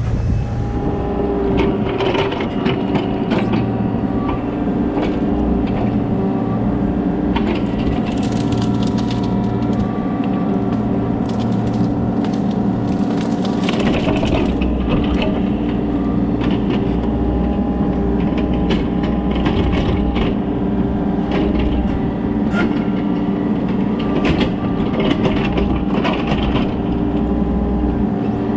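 Kobelco SK35SR mini excavator's diesel engine running steadily under load, with wood and roots repeatedly cracking and splintering as the tree is pushed over. Clusters of cracks come about eight and thirteen seconds in.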